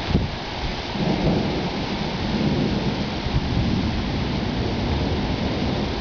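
Thunder rumbling, swelling about a second in and rolling on for several seconds, over a steady hiss of rain.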